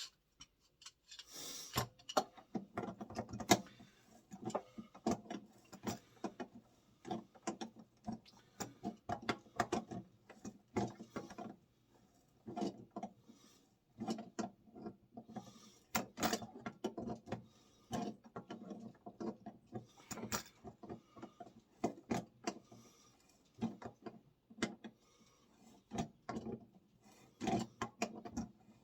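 Ratchet wrench with a 1-1/4 inch socket clicking in irregular short bursts with brief pauses, unscrewing an electric water heater element from the tank.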